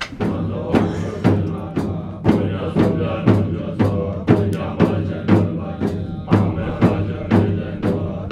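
Tibetan Buddhist monks' ritual music: drum and percussion struck in a steady beat, about three strokes a second, over a low sustained drone.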